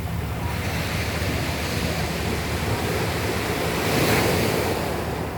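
Sea waves surging and washing over a pebble beach, the hiss building to a peak about four seconds in and then easing back, with wind rumbling on the microphone underneath.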